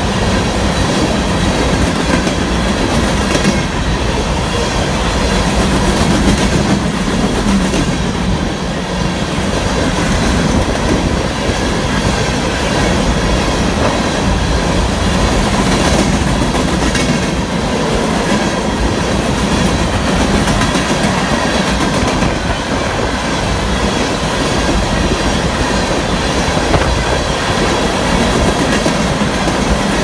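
Loud, steady rumble of a freight train rolling past, its wheels clicking over the rail joints, with thin steady wheel-squeal tones over the rumble.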